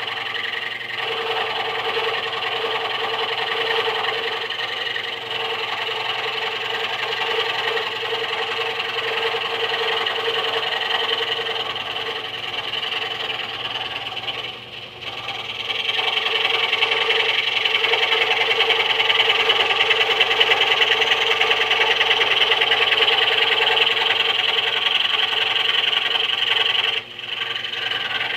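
Harbor Freight scroll saw running at a slow speed, its reciprocating blade cutting thin wood. The steady running drops briefly about halfway through and again near the end, and is a little louder after the first drop.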